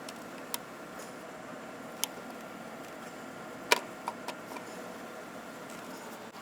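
A handful of sharp, separate clicks and light taps from parts and tools being handled while engine parts are refitted. The loudest click comes a little past halfway, followed by a few smaller ones. A steady faint hum sits underneath.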